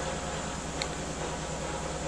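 Miele W 5963 front-loading washing machine running at the end of a high-speed spin, a steady mechanical hum with a hiss over it and one brief tick just under a second in. This is the noise the owner finds abnormal as the drum slows down from spinning.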